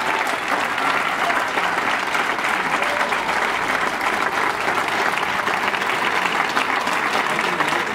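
Large crowd applauding, many hands clapping steadily together.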